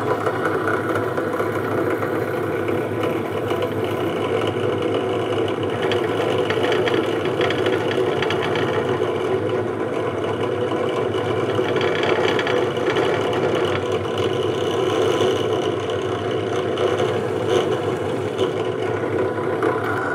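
Old pedestal drill press running steadily, spinning a homemade rivet spinner. Through the middle stretch the spinner is pressed down onto the kitchen tongs' aluminium-wire pivot pin, adding a scratchy rubbing to the motor's hum as it spins the pin into a rivet head.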